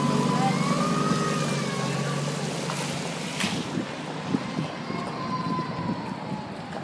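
Audi TT coupé engine pulling away, loudest in the first couple of seconds and then fading into general city street noise.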